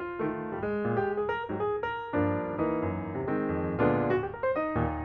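Background piano music: a gentle run of single notes and chords with no steady beat.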